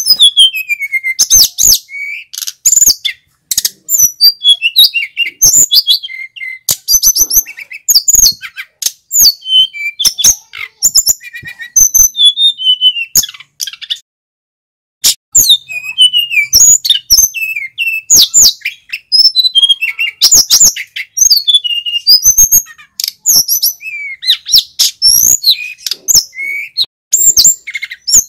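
Male sikatan gunung flycatcher singing loudly: rapid runs of sweeping, high whistled notes and trills in quick succession, with a pause of about a second near the middle.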